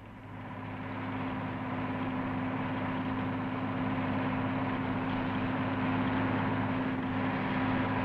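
Massey Ferguson 400 combine harvester running while cutting and threshing a cereal crop: a steady engine and machinery drone. It fades up over about the first second and then holds steady.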